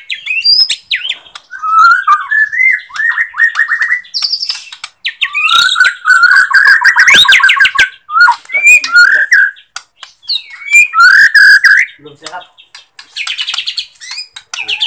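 White-rumped shama (Bornean murai batu) in full song: a varied run of rising and falling whistles and fast rattling trills, in phrases broken by short pauses.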